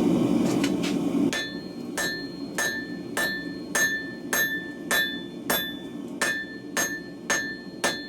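Forging hammer striking hot W2 steel on an anvil, about a dozen evenly spaced ringing blows a little under two a second. A steady low rush runs underneath and is loudest in the first second, as of the gas forge running.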